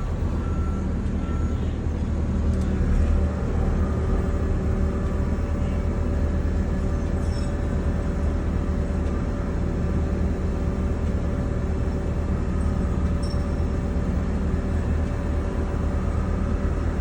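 Liebherr 922 rail machine's diesel engine running steadily, with a steady higher hum joining about three seconds in and dropping away near the end.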